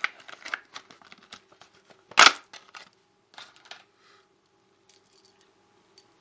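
Small metal clicks and rattles of a cheap padlock being handled, with one louder clunk a little after two seconds and a few lighter knocks a second later. A faint steady hum runs underneath.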